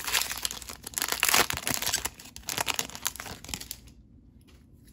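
Foil wrapper of a Yu-Gi-Oh booster pack being torn open and crinkled by hand: a dense crackling that stops about four seconds in. A few faint ticks follow as the cards are handled.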